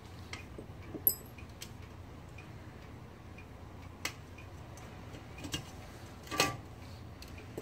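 A few scattered light clicks and taps as a metal typewriter is handled and its parts are touched, spaced irregularly over several seconds.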